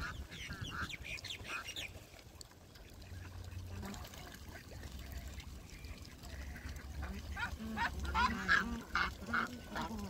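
A flock of ducks quacking: a quick run of calls in the first two seconds, then a quieter spell, then a denser chorus of quacks from about seven seconds in until near the end.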